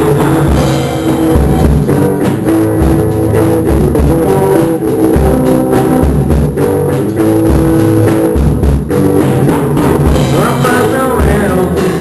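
A band playing a song: a drum kit with regular kick drum strikes under guitar and held chords.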